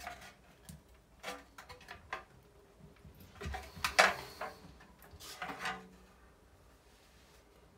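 Sheet-metal housing of an attic exhaust fan being handled and shifted: scattered knocks, clicks and scrapes, the loudest about four seconds in, then quieter for the last couple of seconds.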